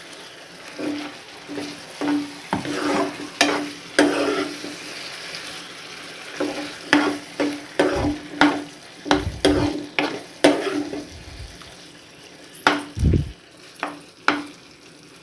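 A spoon stirring a thick curry gravy in a nonstick pan, with irregular scrapes and knocks against the pan, some with a brief low ring. Underneath is a faint steady sizzle of the gravy cooking down.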